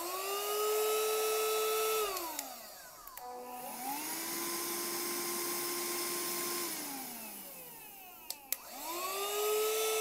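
Two cordless handheld vacuum cleaners, a Silvercrest wet & dry and a smaller cylindrical one, switched on in turn. Each motor whirs up to a steady whine, runs for a few seconds, and winds down when switched off. The first, slightly higher-pitched one runs at the start and starts again near the end; the lower-pitched one runs in between.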